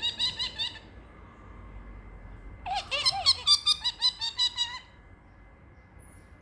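Parrotlet making funny squeaky noises: quick runs of short, high chirps, one fading out at the start and a longer burst about three seconds in.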